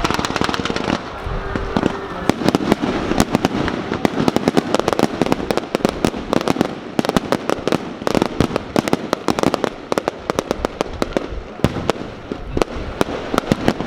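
Aerial fireworks going off in a dense, continuous barrage of rapid bangs and crackles, many reports every second.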